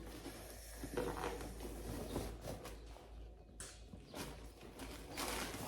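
Faint rustling and light clicks of gift packaging being handled and opened, with a louder rustle near the end.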